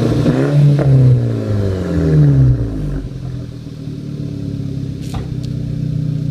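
Mk6 VW GTI's turbocharged 2.0-litre four-cylinder, fitted with an APR K04 turbo, revved stationary at part throttle, a condition in which it misfires. The revs fall back from about half a second in and settle to a steady idle by about three seconds in, with two short clicks near the end.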